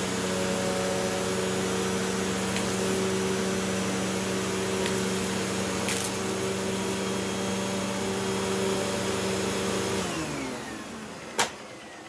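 Hoover WindTunnel T-Series Purely Clean upright vacuum running steadily with its brush roll agitating. About ten seconds in it is switched off and winds down, falling in pitch, and a single sharp click follows near the end.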